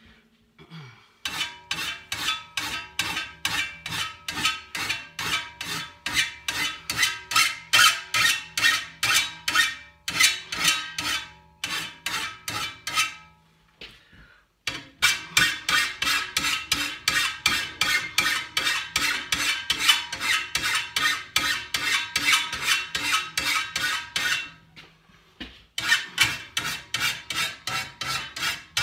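Hand file rasping across the teeth of a steel brushcutter grass blade clamped in a bench vise, sharpening its cutting edges in quick even strokes about two to three a second, with a faint metallic ring from the blade. The filing stops briefly three times.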